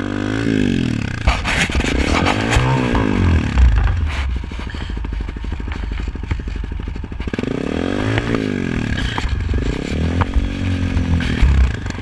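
Honda CRF250L's single-cylinder four-stroke engine revving up and dropping back in about four surges, with scraping and clatter as the rear tyre spins in soft sand while the bike is worked free from where its back wheel is buried.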